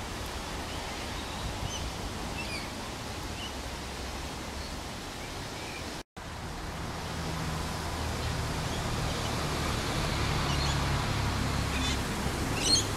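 Outdoor ambience of wind buffeting the microphone, with a steady hiss and low rumble that grows stronger in the second half, and scattered small bird chirps, the loudest calls near the end. The sound cuts out completely for a moment about six seconds in.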